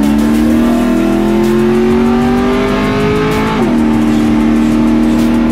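Truck's engine accelerating hard, heard from inside the cab: its pitch climbs steadily, drops sharply about three and a half seconds in as it shifts up a gear, then holds steady.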